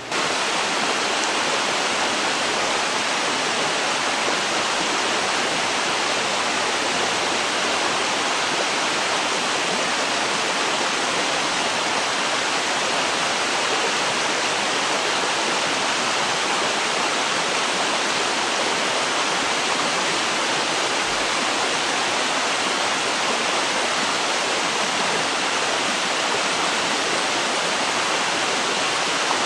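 Flowing river water rushing steadily, a loud even hiss of running water.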